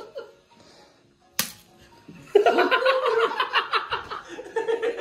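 A single sharp tap of hard-boiled eggs knocked together about a second and a half in, followed by a few seconds of laughter.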